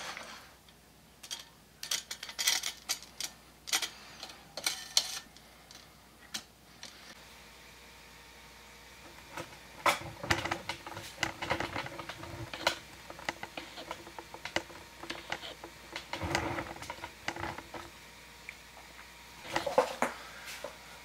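Scattered light clicks and metallic rattles of small hardware being handled: knurled thumb screws being threaded onto the 3D printer bed's spring-loaded levelling screws, with a lull partway through.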